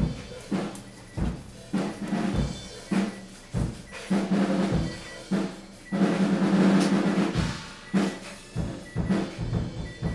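A drum kit being played: an uneven beat of bass drum kicks and snare hits, with a longer drum roll from about six seconds in.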